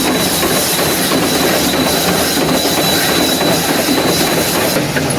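1928 Osgood steam shovel at work: its steam engine running with a dense mechanical clatter and hiss. A thin high whine runs through it and stops shortly before the end.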